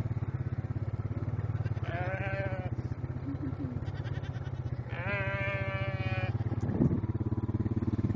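A quad bike's engine running steadily while alpacas call twice with drawn-out, nasal, bleat-like calls: a short one about two seconds in and a longer one about five seconds in. A brief bump is heard near the end.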